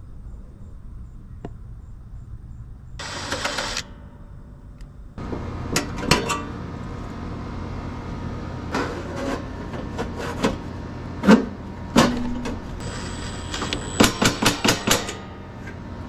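Metal cover of a home breaker panel being handled and fitted back on: scattered knocks and clanks of sheet metal, with a quick run of clicks near the end. A steady low hum comes in about five seconds in.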